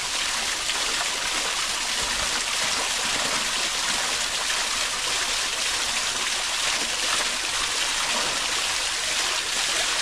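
Steady rush of water pouring from an outdoor shower, an even hiss that doesn't let up.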